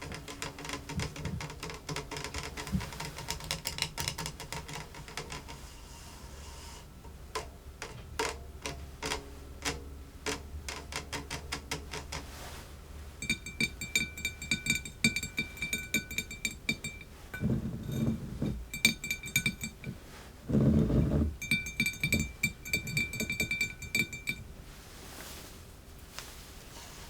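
Close-miked kitchen handling sounds of lemonade being made: first a run of quick taps and clicks, then a high glassy ringing tone that comes and goes, broken twice by louder low handling noises.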